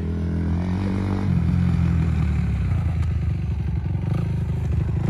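Motocross bike's engine revving as it rides around a dirt track, its pitch shifting up and down with the throttle.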